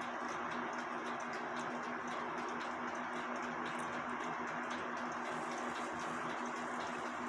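Cuckoo clock movement ticking lightly and evenly, over a steady background hum and hiss.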